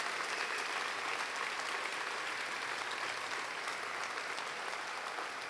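Crowd applauding steadily, a dense patter of many hands clapping that eases off slightly near the end.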